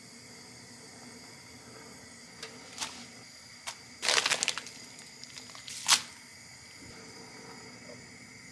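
Faint steady hiss from a simmering pot of water on a gas stove, with a few light clicks and, about four seconds in, a brief crackly rustle, then a single sharp tap near six seconds as ingredients and utensils are handled over the pot.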